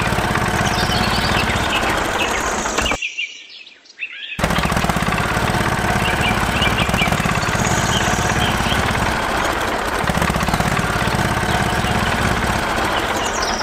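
Steady engine-like running sound of a miniature tractor driving, with birds chirping over it. The sound cuts out for a moment about three seconds in and then resumes.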